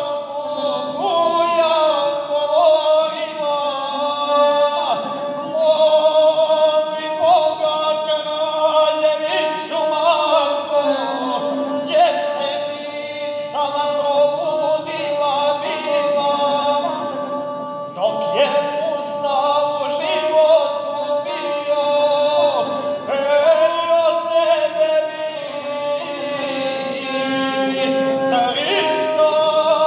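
Male folk guslar singing a Serbian epic song while accompanying himself on the gusle, a single-string bowed lute. The bowed string sounds continuously beneath the voice.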